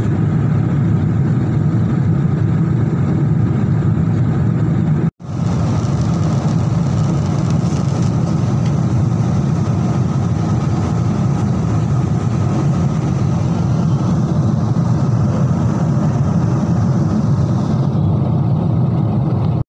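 Airliner cabin noise in cruise flight, heard from a window seat: a loud, steady low rush of engines and airflow. It cuts out for an instant about five seconds in.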